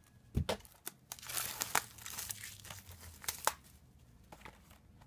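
Wrapping and tape being torn off a Blu-ray digibook: crinkling with a run of sharp crackles, busiest from about a second and a half to three and a half seconds in.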